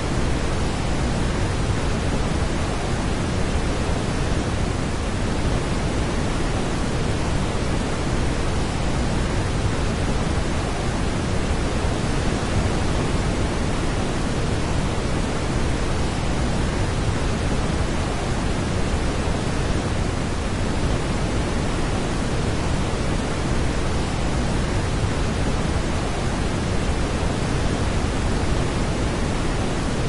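Steady, even rushing of a large waterfall's falling water, with no other sound standing out.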